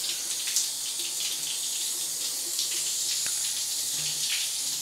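Handheld shower sprayer running steadily, its water spraying onto and through a dog's wet coat as the conditioner is rinsed out.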